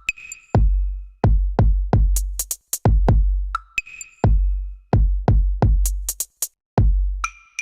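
Electronic music with a drum-machine beat: deep kick drums and sharp high hits in a steady rhythm.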